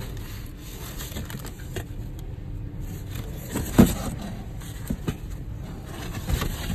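Cardboard box flaps rubbing and scraping as a carton of plastic supplement tubs is opened by hand, with a sharp knock a little past halfway and a few softer knocks after it. A steady low rumble lies underneath.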